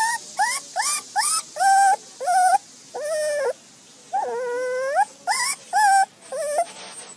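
Pomeranian puppy whining: a quick run of about a dozen short, high-pitched whimpers, with one longer drawn-out whine in the middle that dips and then rises.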